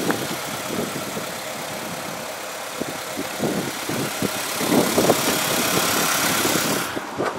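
Honda D17 1.7-litre four-cylinder engine of a 2001 Acura EL idling, with a steady hiss over it. The hiss drops off suddenly near the end.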